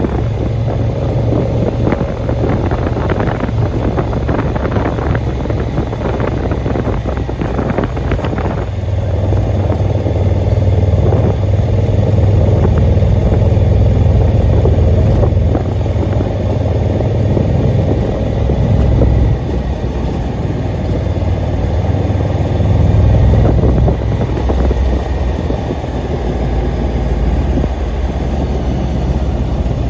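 Vehicle engine running steadily while driving up a mountain road, with road noise, and with short rattles and knocks through the first eight seconds or so.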